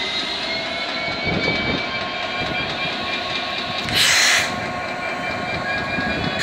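Class 66 diesel-electric locomotive's two-stroke V12 engine running as the train moves slowly past, with rail and wheel noise and a steady ringing tone. There is a short burst of hissing about four seconds in.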